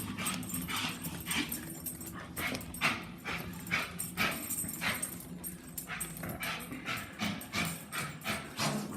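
A dog whimpering and yipping in short, quick repeated bursts, about two or three a second, as it waits impatiently.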